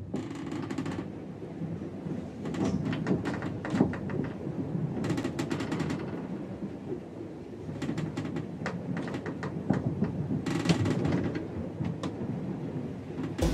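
Atmospheric intro of an electronic pop track: a low rumbling noise with scattered crackles and clicks, without vocals.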